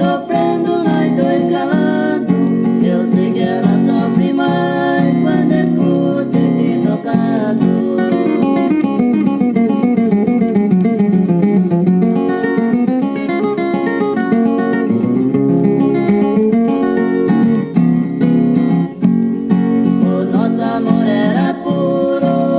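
A 1967 vinyl single of Brazilian caipira music playing on a portable record player: a cateretê with plucked viola and guitar and singing.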